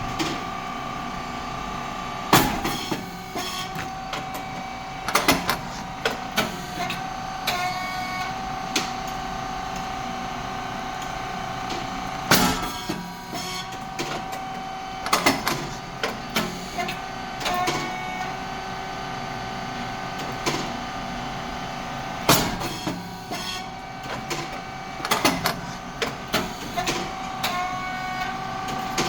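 Puffed rice cake machine (SYP9002) cycling. A loud pop comes about every ten seconds as the heated moulds open and the rice cakes puff out, with clusters of smaller mechanical clicks and knocks in between over a steady hum.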